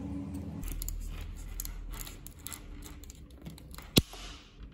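Diagonal side-cutting pliers scraping and clicking against a wire's plastic insulation as the wire is pulled through the jaws to strip it, with one sharp snap about four seconds in.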